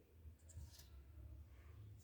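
Near silence: a faint low hum with a few soft, short clicks or rustles in the first second.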